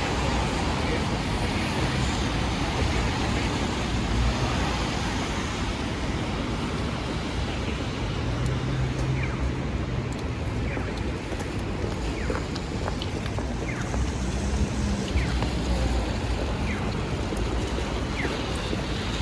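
Steady hiss of a wet city street with a low rumble of traffic, with a few faint short high chirps in the second half.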